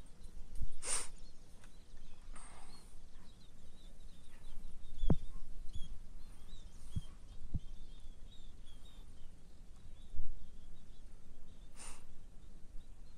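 Quiet outdoor ambience with a low steady background hum, a few short breathy puffs and light knocks, and faint bird chirps in the middle.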